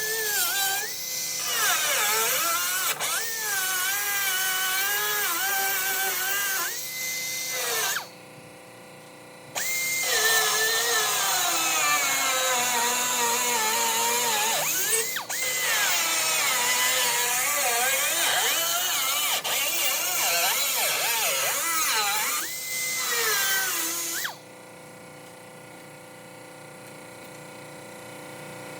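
A high-speed power cutting tool cutting out a door-handle opening in sheet steel. Its whine holds a steady top pitch when running free, then drops and wavers as it bites into the metal. It pauses briefly about eight seconds in and stops a few seconds before the end.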